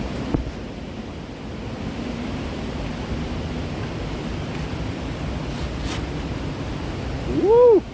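Steady rushing noise, with a brief click about a third of a second in. Near the end comes a short, loud pitched sound that rises and then falls in pitch, lasting about half a second.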